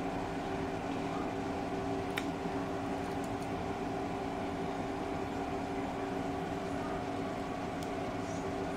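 A steady mechanical hum made of several even tones over a low hiss, with a few faint clicks as a cooked shrimp is peeled by hand.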